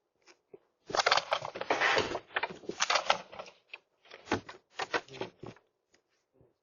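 Irregular bursts of rustling and clicking clatter, heard through a doorbell camera's microphone.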